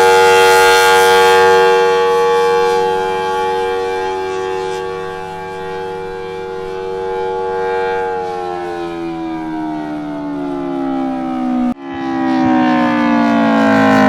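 Air raid siren holding a steady tone, then winding down with falling pitch from about eight seconds in. The sound cuts out for an instant near the end, then carries on falling.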